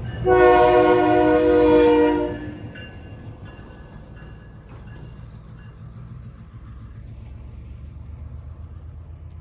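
Diesel freight locomotive's multi-chime air horn sounding a blast that cuts off about two seconds in. The locomotive's engine and the train keep up a low rumble afterwards.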